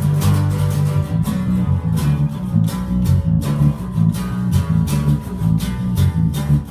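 Band rehearsal playing an instrumental stretch of a rock song: guitar and bass guitar over a steady beat of sharp hits, with no singing.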